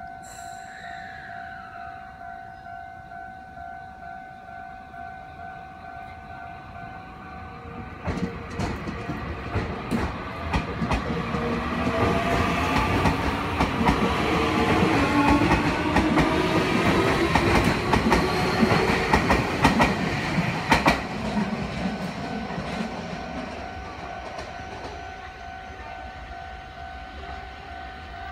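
Level-crossing warning bell ringing steadily as a Keio Inokashira Line electric train passes close by. From about eight seconds in the wheels clack over the rail joints and the motor whine rises in pitch, growing loudest in the middle. The train noise dies away near the end while the bell keeps ringing.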